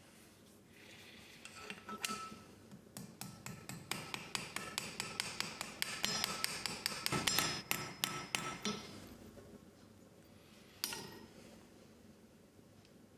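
Hand hammer tapping cold iron pendant pieces on a steel anvil: a quick run of light, ringing metallic taps, about four a second, for several seconds, then a pause and one more tap near the end.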